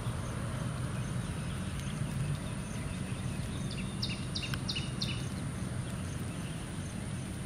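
Distant Air Tractor AT-802A turboprop on approach, a faint steady low drone, with a quick run of about four bird chirps about four seconds in.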